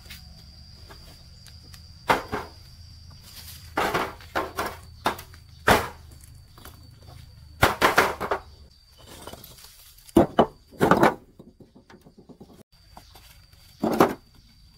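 Bricklaying work: irregular knocks and short scrapes of a trowel on bricks and mortar, about a dozen, some single and some in quick clusters.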